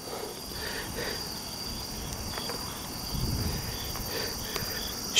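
Crickets chirping: a steady high trill with short higher chirps repeating about twice a second, over faint rustling.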